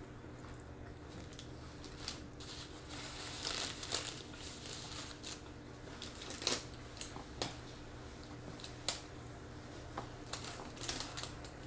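Paper burger wrapper crinkling in short spells as it is handled, with scattered small clicks.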